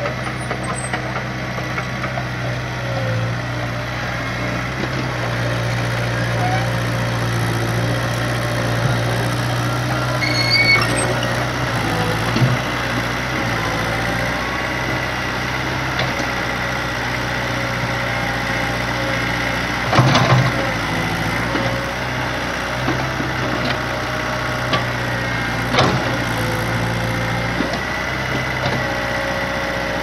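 A Kobelco SK03 excavator's diesel engine running steadily while the machine works its bucket through rubble and roots. A few sharp knocks and clunks sound over it, the loudest about twenty seconds in and again near twenty-six seconds.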